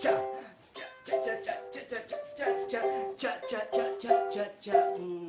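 A small string instrument strummed in a lively rhythm, chords struck roughly two or three times a second with the notes ringing between strokes.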